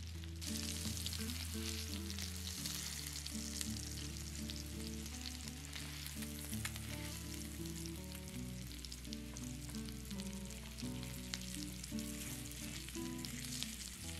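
Flour-dredged chicken breasts sizzling as they shallow-fry in oil in a pan: a steady crackling hiss that grows louder about half a second in, with scattered pops. Soft background music with held low notes plays underneath.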